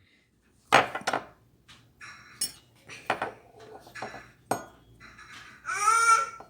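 Plastic Play-Doh tools knocking and clattering against a tabletop while the dough is rolled out and flattened, in a series of separate sharp knocks. A short, high-pitched voice-like sound with wavering pitch comes near the end.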